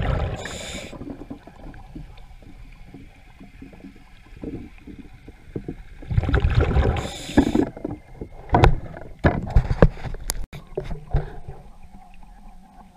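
Muffled water movement heard through a waterproof camera housing underwater, with a louder rushing stretch past the middle and then a run of sharp knocks and clicks.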